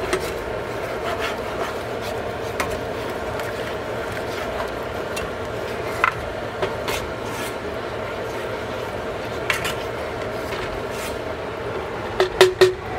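Black plastic spatula stirring and scraping through thick tomato sauce in a nonstick frying pan, a rubbing, rasping sound over a steady hum, with a few faint clicks. Several sharp clicks come near the end.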